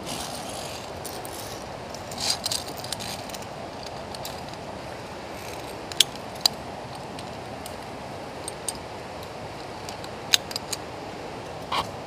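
Via ferrata lanyard carabiners clinking and snapping against the steel safety cable and rungs: a jangle about two seconds in, then sharp single clicks, the loudest two half a second apart around the middle. Underneath runs a steady rushing noise.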